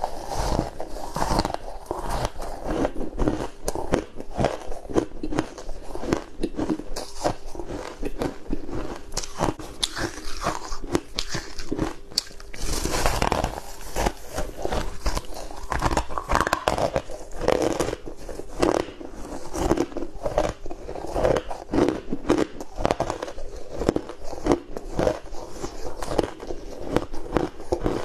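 Hard, crunchy ice being bitten and chewed up close: many crisp cracks and crunches in quick succession as big bites break off a block of frozen coloured ice.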